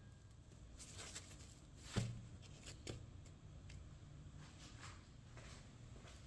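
Faint rustling and soft pats of hands pressing on a stack of soft pan-cooked breads, with a light knock about two seconds in and a smaller one about a second later.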